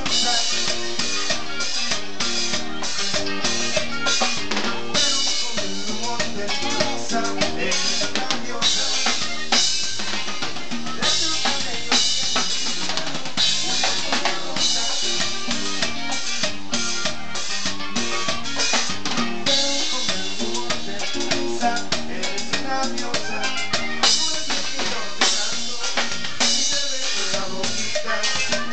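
Tejano band playing live with no singing: accordion over a drum kit and congas, with a steady beat and sharp snare and rimshot strokes.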